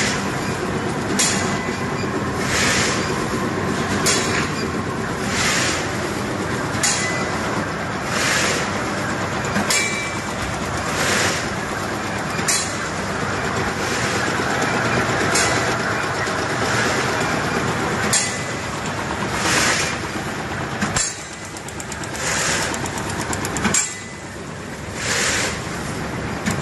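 High-speed sachets-into-bag powder packing machine running, a steady mechanical din with a regular cycle: a sharp click and a short hiss about every one and a half seconds.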